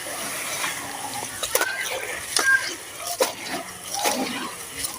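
Dry sand-cement crumbling and dropping into water, with irregular crunches, crackles and splashes.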